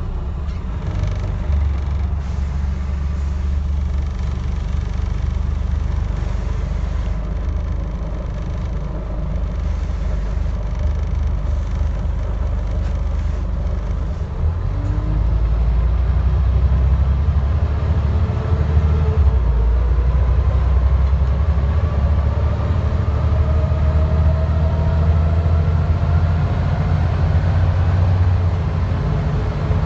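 Scania N94UD double-decker bus's rear-mounted diesel engine running under way, heard from the back seats inside the cabin with a deep steady rumble. About halfway through the engine grows louder as the bus pulls harder, and a faint whine slowly rises in pitch.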